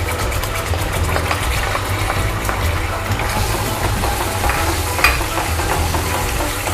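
Ginger-garlic paste frying in hot oil with fennel seeds in a kadai, sizzling steadily while a spoon stirs and scrapes the pan, with a sharper clink about five seconds in.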